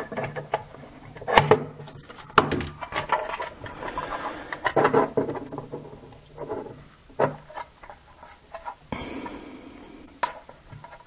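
Utility knife blade scraping and clicking at the seam of a plastic nightlight base as it is pried at, then hands squeezing and rubbing the plastic housing: irregular clicks and scrapes, with a brief rubbing hiss about nine seconds in.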